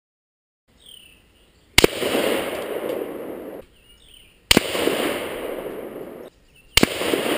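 Three rifle shots from a .223 AR-15, about two and a half seconds apart. Each sharp crack is followed by a long echo that hangs on for nearly two seconds.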